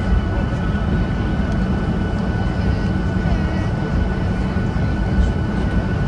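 Boeing 737 jet engines heard from inside the cabin over the wing while the airliner taxis. A steady low rumble with a thin, even whine on top, neither rising nor falling.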